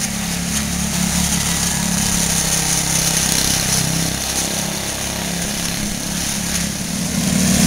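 Quarter midget race car's small single-cylinder engine running steadily as the car laps an oval track. The drone swells and eases a little as it goes round, growing louder near the end.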